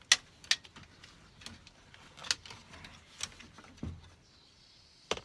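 Scattered sharp clicks and knocks of the door-lock assembly, its bolt and hand tools being handled as the assembly is fitted back into the sliding door, with a duller thump about four seconds in.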